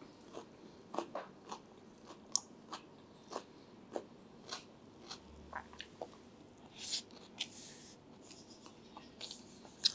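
Faint chewing of a mouthful of beef khichuri, soft scattered mouth clicks and smacks, with a short hiss about seven seconds in.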